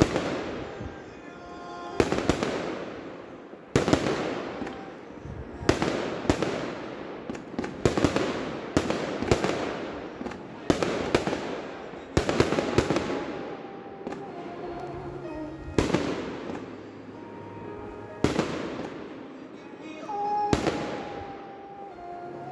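Aerial firework shells bursting in a rapid series, roughly a dozen sharp bangs spaced one to two seconds apart, each trailing off with a rumble.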